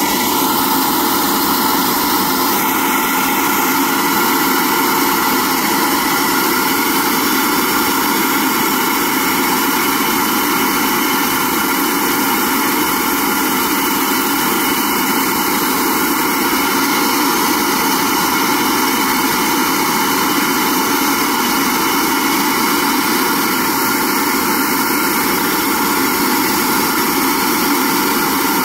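SuperFlow flow bench running flat out, pulling air through a Mopar M1 intake manifold at about 28 inches of water and 350 cfm: a loud, steady rush of motor and air that never changes.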